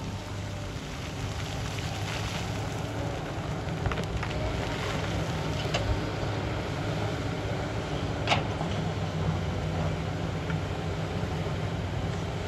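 A Sany crawler excavator's diesel engine running steadily under load while the bucket digs and scrapes through loose shale and rock, with several sharp clacks of stone on steel, the loudest about eight seconds in.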